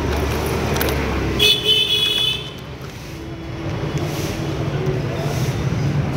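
Road traffic running, with a short, high-pitched horn toot about one and a half seconds in.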